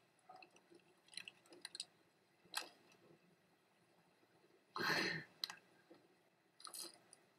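Faint, sparse crackles and crunches of dry, crumbled raw instant ramen noodles and their foil packet being handled and eaten, with one louder crunch a little before five seconds in.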